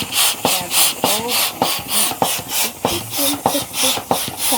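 Bestway Air Hammer manual pump being worked rapidly to inflate a balloon: a regular rush of air with each stroke, about three strokes a second, with squeaks on some strokes.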